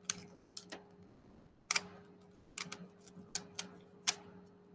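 Plastic drinking straws clicking and rattling against each other as a handful of ten is gathered and bundled: irregular light clicks and ticks, about ten of them scattered through.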